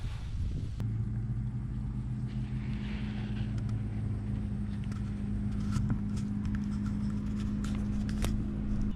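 A steady low mechanical hum sets in about a second in and runs on evenly, with a few faint clicks over it.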